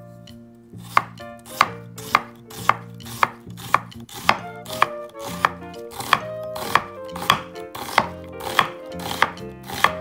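Chef's knife chopping onion on a wooden cutting board: a steady run of knife strikes against the board, about two a second, starting about a second in.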